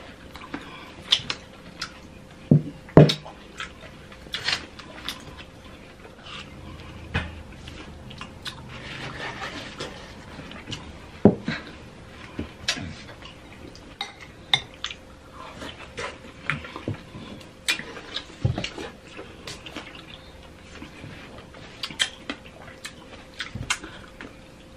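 Metal spoons clinking and scraping against a glass bowl of whipped cream and fruit, in irregular sharp clicks, mixed with close-up chewing of juicy fruit such as watermelon.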